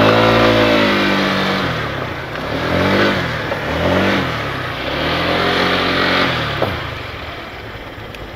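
Small motorcycle engine revving up and easing off about four times at low speed, then fading away near the end.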